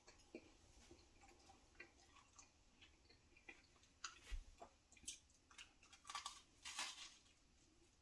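Close-up chewing of a s'more, with short soft crunches and sticky mouth clicks, a few louder ones in the second half.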